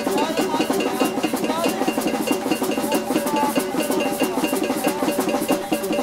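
Maracatu de baque solto band playing an instrumental stretch: wind instruments carry a wavering melody over fast, dense percussion, with a high metallic beat repeating steadily.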